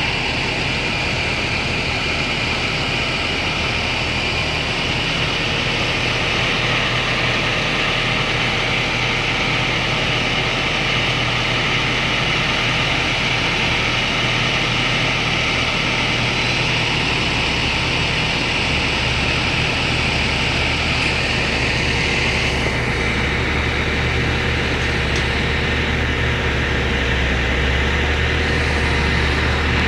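Excavator diesel engine running over a steady rush of floodwater; the engine's low hum grows stronger about halfway through.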